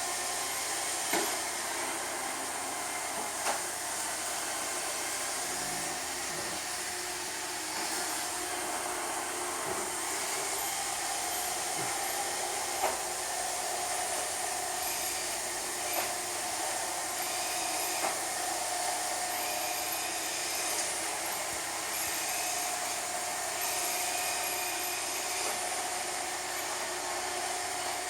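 Roomba robot vacuum running, a steady whirring hiss with a faint whine, with short light knocks now and then.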